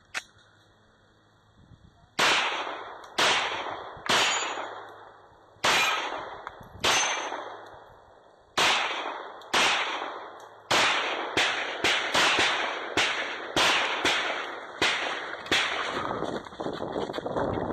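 A string of about twenty gunshots, each with a ringing tail. After a pause of about two seconds they come roughly a second apart, then speed up to about two a second from the middle on.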